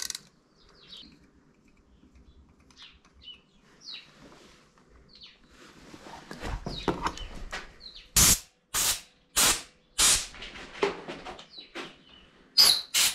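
Birds chirping faintly. Then, about eight seconds in, a series of loud short rushing bursts of noise, roughly two a second, with a pause and a second cluster near the end.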